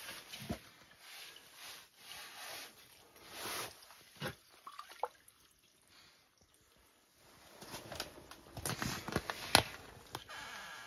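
Lake trout being released in an ice-fishing hole: water sloshing and dripping as the fish is held and lowered into the hole, with a few sharper splashes near the end as it kicks free.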